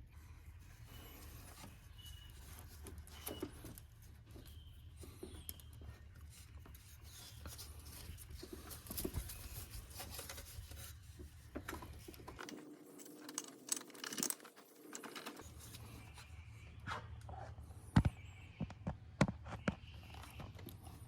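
Hand tools and small metal parts clicking, tapping and scraping in scattered, irregular knocks, a few sharper ticks near the end, over a low steady hum that drops out for a few seconds midway.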